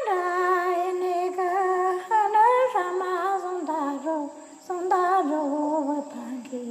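A woman's voice singing a slow melody unaccompanied, in long held, wavering notes, with fresh phrases starting about two and about five seconds in.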